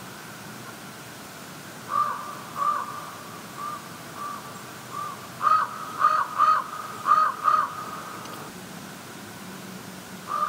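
A crow cawing over and over in short arched caws, fainter ones first, then louder caws in quick pairs near the middle; the calling stops about three seconds before the end.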